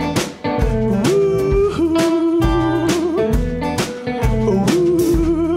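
Electric blues band playing: guitars, electric bass and drums, with a held, wavering lead line over a steady beat.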